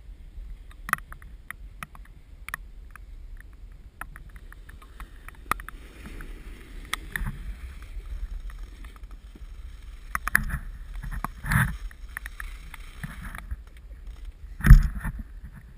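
Skis sliding over soft, wet snow with a low rumble and many scattered clicks and ticks, a hissing stretch in the middle, and two heavier thumps near the end, the last one the loudest.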